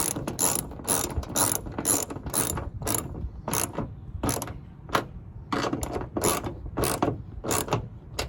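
Hand ratchet wrench being worked back and forth on a bolt, a quick clicking stroke about twice a second.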